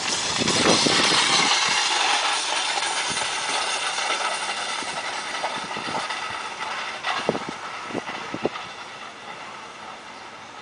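Weighted training sled dragged on a chain over a dirt running track: a loud scraping rumble that fades as it is pulled away. A few short knocks come near the end.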